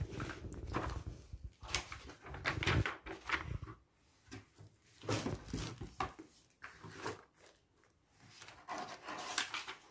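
Paper sheets and cardboard box parts being handled: irregular rustling and soft knocks as board-game pieces are packed into their box and a cardboard lid is laid on.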